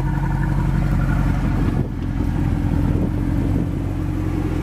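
Mercedes-Benz SLS AMG's 6.3 AMG V8 engine running with a steady low exhaust note, dipping slightly about two seconds in.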